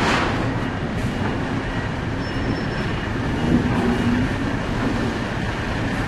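Coach bus's diesel engine running as the bus rolls down a ferry's vehicle ramp onto the quay, over a steady low rumble. The engine note comes through more clearly from about halfway.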